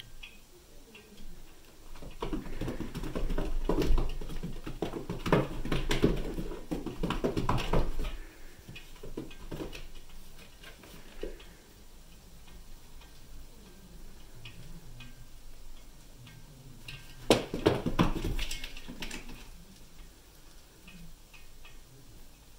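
A cat moving about in a hard plastic paddling pool: paws scrabbling and knocking and bumping on the plastic in two bouts. The first starts about two seconds in and lasts some six seconds; the second is shorter and comes near the end.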